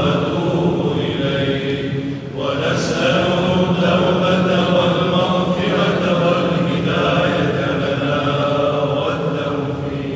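Congregation of men chanting dhikr together in long repeated phrases, with a short break between phrases about two seconds in.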